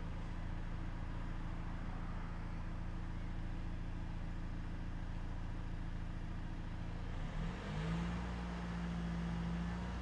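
2020 Ford Transit's diesel engine idling steadily; about seven seconds in its speed rises and holds at a higher, slightly louder pitch.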